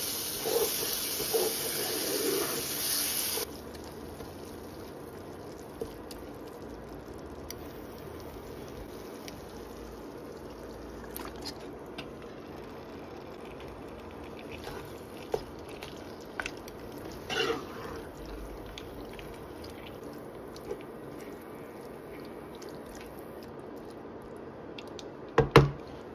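Curry masala sizzling and bubbling in a non-stick pan as a wooden spoon stirs it, loud at first and cutting off suddenly about three and a half seconds in. Then only soft, scattered clicks and squelches of stirring, with a couple of sharp knocks of the wooden spoon against the pan near the end.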